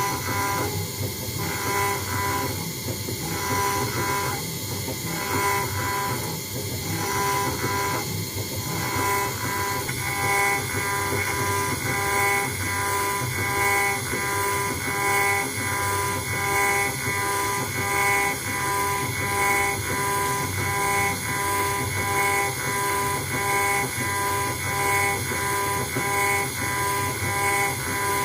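CNC router spindle running steadily with a high whine as it engraves a brass plate, the sound pulsing regularly as the cutter makes its back-and-forth passes, about every two seconds at first and roughly once a second from about a third of the way in.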